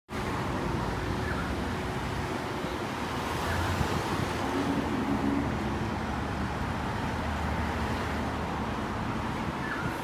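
Steady road traffic: the engines and tyres of a line of cars, SUVs and vans driving past on a multi-lane city road, a continuous rumbling hum.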